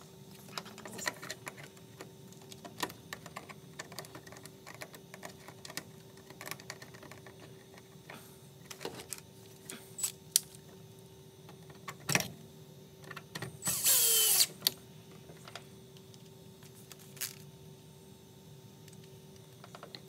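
Cordless drill driving a screw in one short burst about two-thirds of the way through, its pitch dropping as it stops, amid scattered clicks and knocks of hands handling wiring and hardware.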